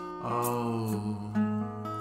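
Acoustic guitar strummed under a man singing one long held note, with a new chord struck about a quarter of a second in.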